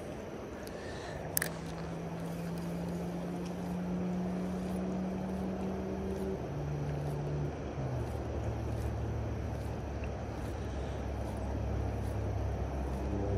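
A low engine drone, dropping in pitch in steps about six and eight seconds in, over a steady rush of water.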